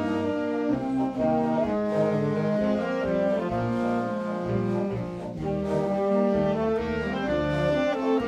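A school band playing live, with brass to the fore, in held chords that change every half second to second. It softens briefly about five seconds in.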